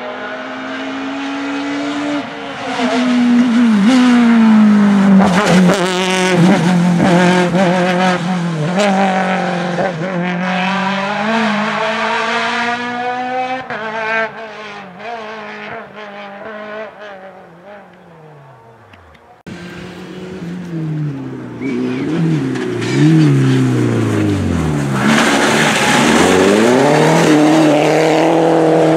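Rally car engine at full throttle, the revs climbing and dropping through gear changes, with sharp cracks as it lifts off. It then falls away in a downward glide as it passes into the distance. After a sudden cut, a second rally car, a Peugeot 207, comes in loud, revving up and down through its gears.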